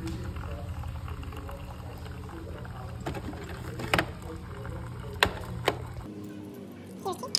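Keurig single-serve coffee maker's pump buzzing steadily as it brews into a paper cup. The buzz thins out about six seconds in. A few light plastic clicks come from K-cup pods being handled.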